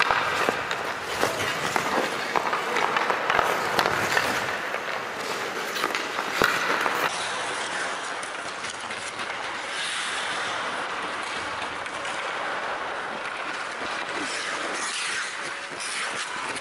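Ice hockey skate blades scraping and carving on rink ice, with sharp clicks of a stick on the puck during the first seven seconds, the loudest about six and a half seconds in. After that comes a steadier hiss of skates gliding and cutting.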